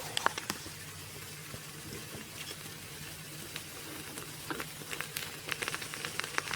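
Uthappam batter sizzling in oil in a hot pan as it cooks, a steady soft hiss with a scatter of light ticks and pops that come more often near the end.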